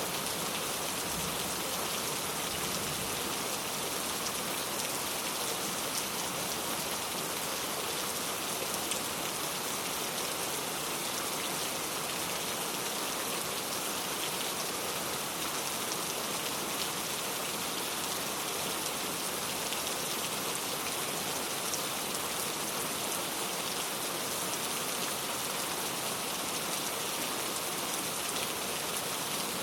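Steady rain falling, with a continuous hiss and many fine drop ticks.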